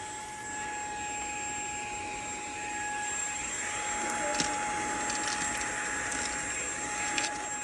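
Fanttik V8 Apex cordless handheld vacuum running steadily: a high motor whine over rushing air, with a few brief clicks.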